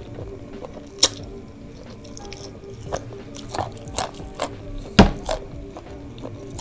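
Wet mouth sounds of chewing spicy boneless chicken feet, with a metal spoon clicking and scraping on the serving tray, the sharpest knock about five seconds in. Soft background music with steady held notes plays underneath.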